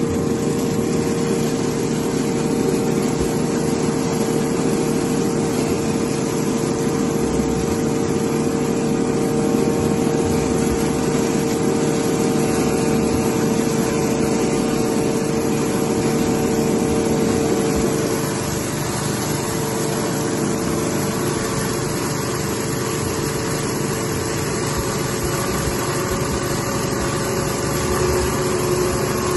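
Rice husk machine running steadily. It gives a continuous mechanical drone with a high whine that drops in pitch and fades about eighteen seconds in, and a lower whine comes up near the end.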